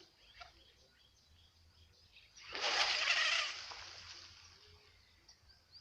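A short rushing, hissing noise rises sharply about halfway through and fades over about two seconds. Faint bird chirps come near the end.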